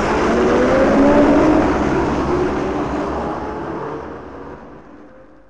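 Sound-effect of a bus engine pulling away, its pitch rising as it accelerates, loudest about a second in and then fading away over the last few seconds.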